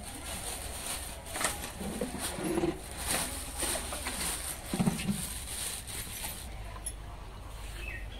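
Plastic carrier bag rustling and crinkling in short bursts as vegetables are taken out of it, with a few short low sounds in between.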